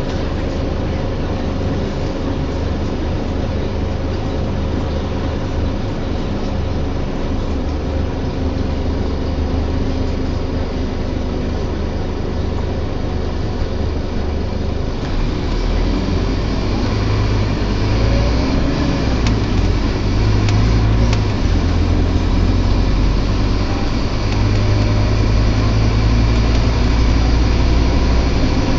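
On board a Scania K230UB (Omnilink) single-deck bus under way: steady engine drone and road noise, growing louder and deeper from about halfway through as the bus works harder, with the groaning noise this bus is known for.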